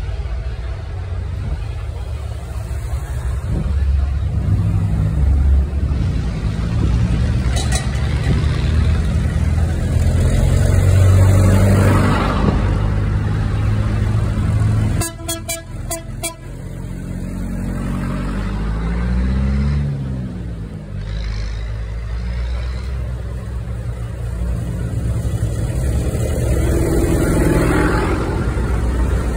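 Old farm tractors, among them a John Deere and a Ford, driving slowly past one after another with their diesel engines running. Engine speed rises and falls a little over halfway through, and about halfway through there is a quick run of sharp clicks.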